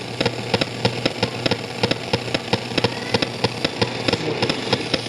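Radio receiver's audio filled with a rhythmic ticking buzz, about six even clicks a second over a steady low hum: radio frequency interference from an alarm panel.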